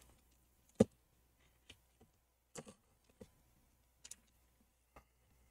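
Scattered light clicks and taps from a gloved hand working on an opened MacBook Pro at its hinge and display cables, with one sharper knock about a second in.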